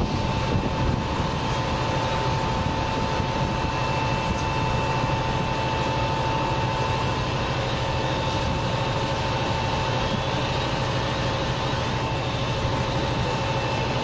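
A fire engine's engine running at a steady speed to drive its pump, a constant drone with a steady whine over it.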